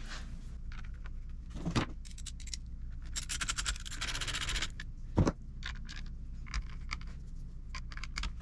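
Hard plastic and small metal trimmer handle parts being handled and fitted together: scattered light clicks and rattles, a dense jangling rattle from about three to four and a half seconds in, and a sharper knock a little after five seconds.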